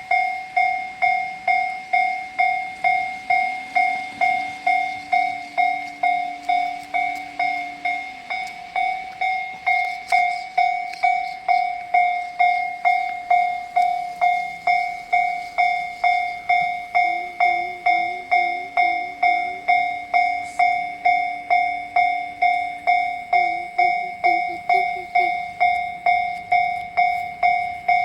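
Japanese railway level-crossing warning bell ringing in a steady 'kan-kan' rhythm, about two strikes a second, each strike a clear two-tone ring. Under it, a fainter low hum rises, holds and falls away twice.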